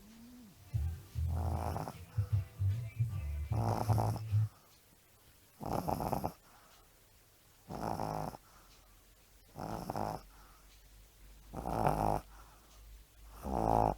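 Pug snoring in its sleep: rattling snores repeating about every two seconds. A low rumble sits under the first two.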